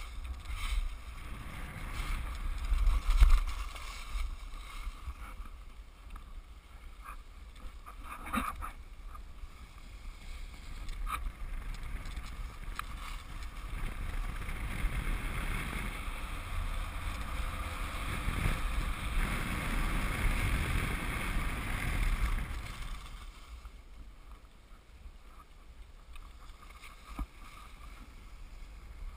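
Wind buffeting an action camera's microphone during a downhill ski run, with skis hissing and scraping over packed snow. The rushing grows louder through the middle of the run and eases off near the end, with a few brief knocks.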